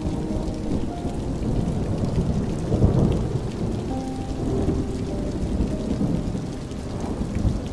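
Thunder rumbling under steady rain, the rumble swelling about three seconds in. Soft held musical notes sound faintly over it.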